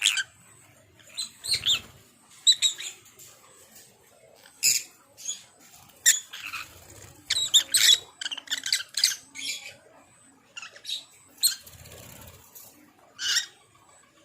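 Lovebirds calling: a run of short, shrill chirps and squawks in irregular clusters, with a few soft low thuds among them.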